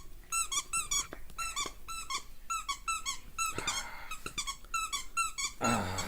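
A Shih Tzu chewing a squeaky dog toy: the squeaker squeaks over and over, short high squeaks about three a second, with two brief bursts of noise in between.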